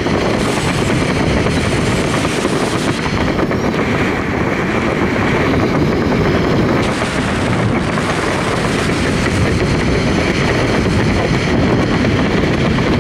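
Freefall wind blasting over a body-mounted camera's microphone: a steady, loud rumbling rush of air.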